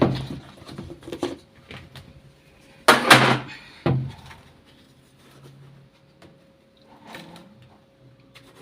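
Handling noises while detergent is added to a top-load washing machine: a sharp clack at the start, a short loud rustling scrape about three seconds in and a knock just after, then faint fiddling sounds over a faint steady hum.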